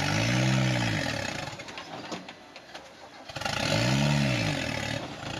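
Rock-crawling buggy's engine revved in two bursts while it climbs a boulder. Each burst rises and then falls in pitch, with a quieter lull between them.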